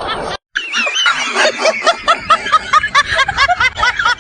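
A rapid run of short, squawking, cackle-like calls, each rising then falling in pitch, about four a second, starting after a brief cutout.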